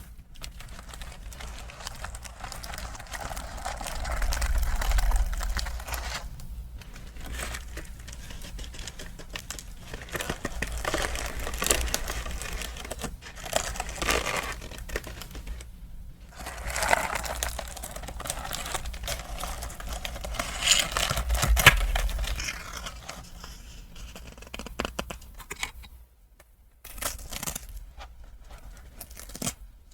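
Packaging being unwrapped by hand, crinkling and tearing in irregular bursts with dull knocks on the table, ending in a few short clicks.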